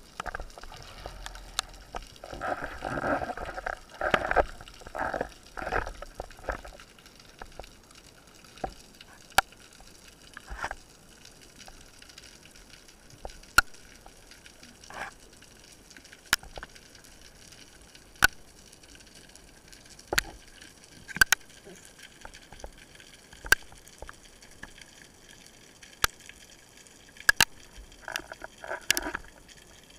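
Underwater sound heard through a speargun-mounted camera: water swishing in several short rushes during the first few seconds and again near the end, with isolated sharp clicks every second or two in between.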